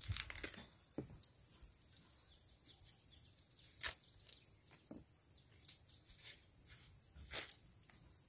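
Faint scraping and tearing as a knife peels the skin off a fresh cassava root, with scattered sharper clicks, the loudest about four seconds in and again near the end. The root is young, its peel not yet firm, so it comes away easily.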